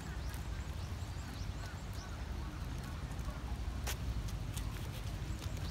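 Outdoor park ambience: a steady low rumble with faint, short high bird chirps and scattered light clicks, one sharper click a little before the end.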